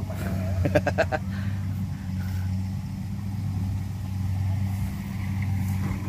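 Kubota DC95GM combine harvester's diesel engine idling with a steady low hum, and a few short knocks about a second in.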